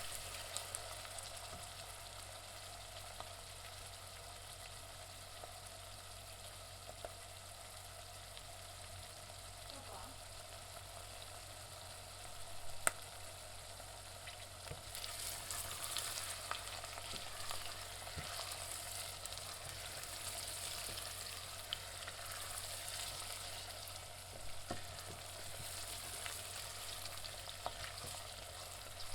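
Onions frying in a pan: a steady sizzle with scattered sharp pops, one of them louder about thirteen seconds in, and the sizzle growing louder in stretches over the second half.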